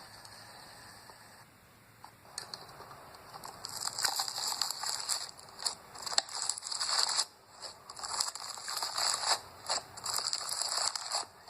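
Slime being squeezed and worked by hand, making dense crackling and clicking pops in bursts with short pauses between them, starting a few seconds in.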